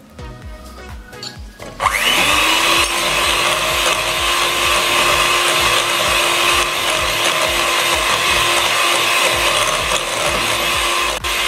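Electric hand mixer switched on about two seconds in, its whine rising as the motor spins up, then running steadily as its beaters whip creamed butter and sugar with freshly added egg.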